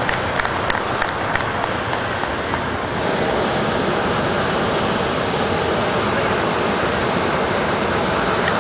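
Hot-air balloon's propane burner firing, a steady rushing noise that grows louder and more even about three seconds in.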